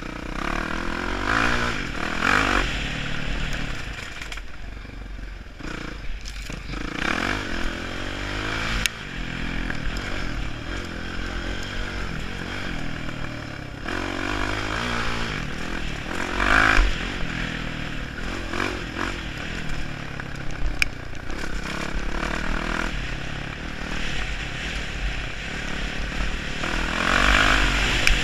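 Dirt bike engine being ridden hard, its pitch rising and falling again and again as the rider works the throttle and gears. A few sharp knocks and rattles come from the bike going over rough ground.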